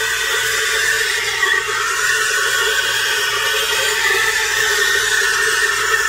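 Steam wand of a Galanz 2-in-1 pump espresso machine hissing steadily with its tip in a mug of milk, frothing the milk.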